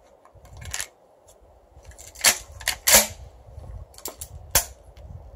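Metal clacks of a pump-action 12-gauge shotgun being loaded and racked, then a single sharp click as the trigger is pulled and the firing pin falls without a shot. It is a misfire: a slug shell that had soaked 24 hours in water fails to go off again.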